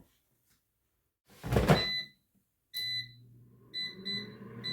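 Air fryer drawer pushed shut with a brief sliding thunk, then several short beeps from the control panel as the time is set. The fan motor starts and hums steadily, with a faint rising whine as it spins up.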